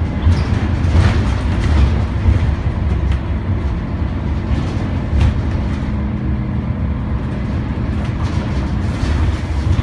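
Scania OmniCity bus's diesel engine running under way, heard from inside the passenger saloon: a steady low rumble with road noise, and a few short knocks and rattles from the bodywork.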